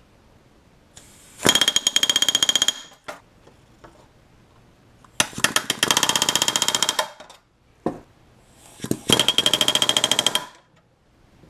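Pneumatic rivet gun driving aluminium rivets against a bucking bar: three bursts of rapid hammering, each about one and a half to two seconds long, with a short single knock between the second and third.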